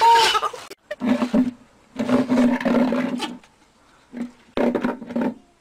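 An animal growling in loud rough bursts: a short one, a long one of about a second and a half, then two shorter ones, with brief pauses between.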